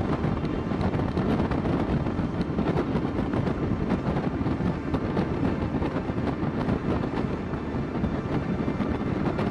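Motorcycle riding along at a steady pace: engine and road noise under a rumbling buffet of wind on the rider's microphone.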